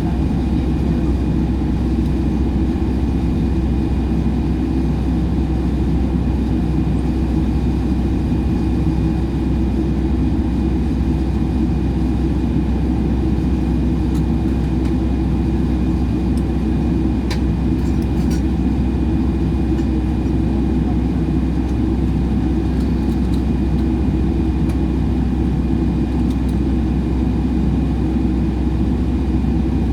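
Airliner cabin noise while taxiing to the runway: a steady low rumble with a thin, constant high whine, and a few faint clicks about halfway through.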